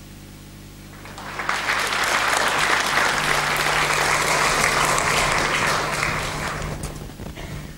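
Audience applauding. The clapping swells about a second in, holds, then dies away near the end.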